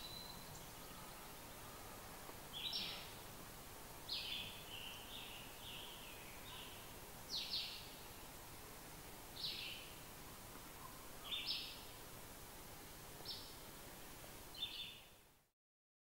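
Wild birds chirping outdoors: short high chirps repeated every second or two over a faint steady background hiss, cutting off abruptly near the end.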